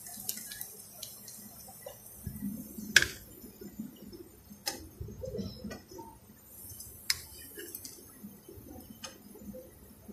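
Slotted spoon tapping and clicking against the frying pan and plate as fried chicken balls are lifted out of the oil and set down, a few sharp, separate clicks, the loudest about three seconds in, over low handling noise.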